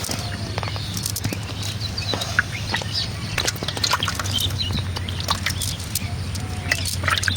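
Small birds chirping in short, scattered calls, over many quick clicks and a steady low hum.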